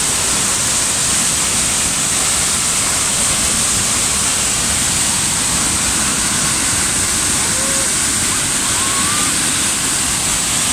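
Dam release water gushing down a concrete discharge channel, a loud, steady rush of churning white water.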